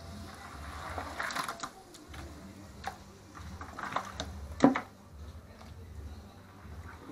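Wet, seasoned chicken pieces being handled and dropped by hand into a pot of curry, with squelches and plops, and a single sharp knock about two-thirds of the way through.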